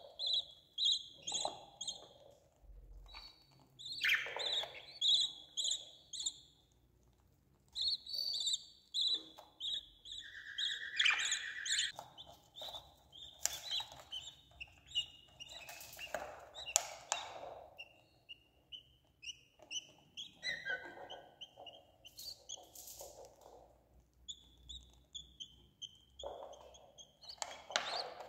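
Budgerigar chicks in the nest box giving trains of quick, repeated high chirps, the begging calls of chicks being fed by a parent, with brief rustling in between.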